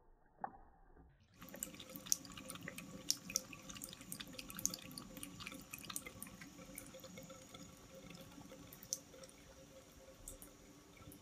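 Thin stream of water from a bathroom tap trickling and splashing into a ceramic sink, with many sharp drips and splashes. It starts about a second in, after a short quiet, muffled stretch.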